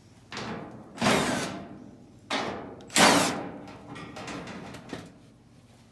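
Work on a clothes dryer's sheet-metal back panel: four short scraping, rattling noises in two pairs, each pair a softer one followed by a louder one that fades over about a second.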